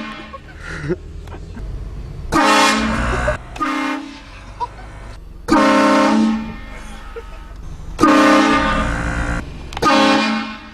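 Train horn sounding in four long, loud blasts, each a steady chord lasting a second or more, with short gaps between them.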